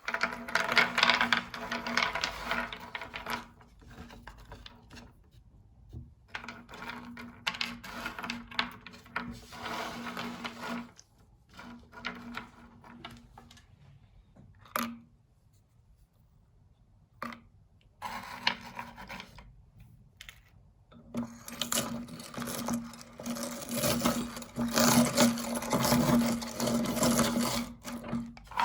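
Electric meat grinder running and crunching gold candy: a steady motor hum under crackling and grinding. It stops and starts again several times, with short quiet gaps in between.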